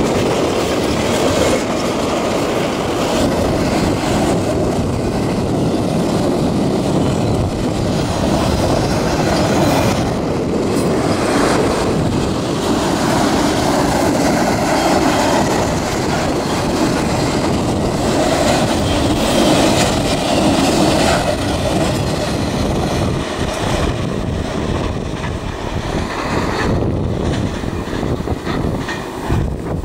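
Freight train cars rolling past: double-stack container cars, then autorack cars, all under strong wind buffeting the microphone. Near the end the last cars have gone by and mostly wind remains.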